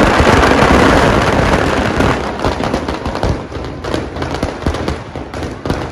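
Firecrackers packed in a burning Ravana effigy going off in a dense, rapid crackle of bangs, loudest at the start and thinning to scattered pops.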